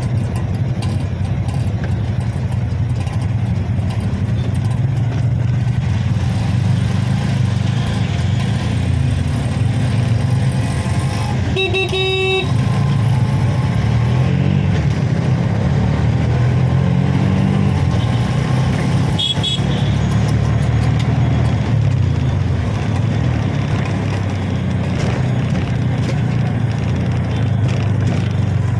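Auto rickshaw's small engine running under way, its pitch climbing for a few seconds past the middle as it speeds up. A vehicle horn honks for about a second near the middle, and a short higher toot follows about seven seconds later.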